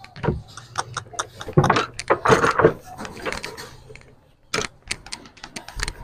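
Footsteps of a heifer and the man leading her on a rope across a hard yard: scattered clicks and scuffs of hooves and sandals, with a denser scuffling stretch about two seconds in.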